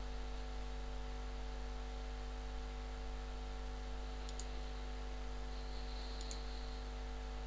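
Steady electrical hum on the recording, made of several held tones, with a few faint computer mouse clicks about four and six seconds in.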